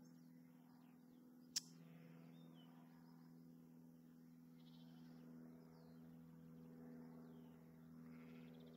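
Near silence: a faint steady low hum, one sharp click about one and a half seconds in, and a few faint high chirps.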